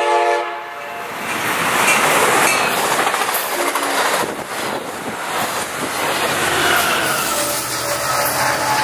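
A train horn's chord cuts off about half a second in. Then the Pacific Surfliner passenger train rushes past at speed, its bilevel cars running loud over the rails with a clattering of wheels.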